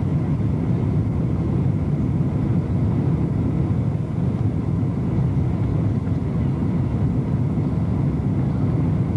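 Boeing 747-200 jetliner's steady, low rumble of engines and airflow, heard from inside the aircraft.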